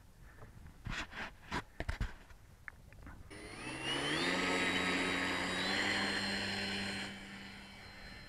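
A few light knocks, then an RC model plane's motor and propeller spool up about three seconds in, with a whine rising in pitch to full throttle for the takeoff run from grass. The motor holds steady, then fades near the end as the plane climbs away.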